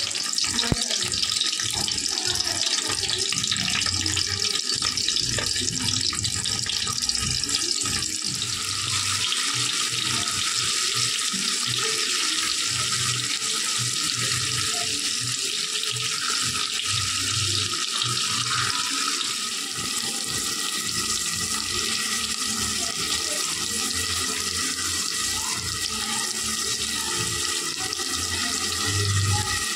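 Whole boiled eggs frying in hot oil in an aluminium pot, a steady sizzle that grows brighter about eight seconds in.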